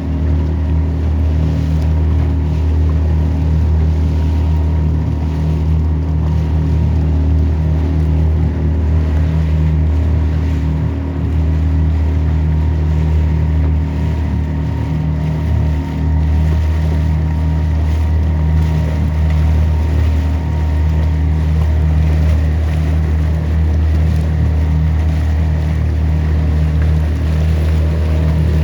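Rented motorboat's engine running steadily at a constant cruising speed, a low even drone.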